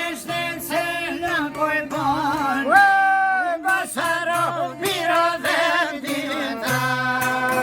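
Albanian folk song: a solo voice sings a heavily ornamented, wavering melody over a steady low string drone, holding one long note about three seconds in. Near the end the voice gives way to steady instrumental notes.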